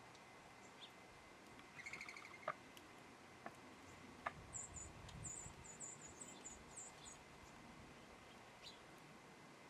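Faint small songbirds calling: a short chirping trill about two seconds in, a few sharp clicks, then a run of about eight very high, thin notes from about halfway through.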